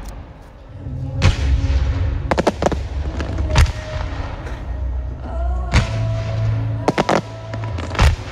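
Fireworks shells bursting in a series of sharp bangs, some singly and some in quick clusters of two or three, over music playing along with the show.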